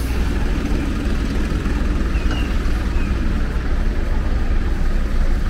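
Bus engine running with a steady low rumble, heard from inside the bus.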